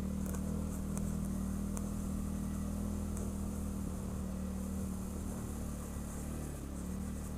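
ATV engine running steadily with a low, even hum, its pitch wavering slightly near the end. A few faint ticks sound over it.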